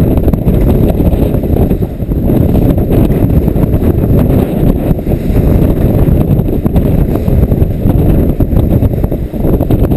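Strong 20–30 knot wind buffeting the camera microphone: a loud, steady low rumble.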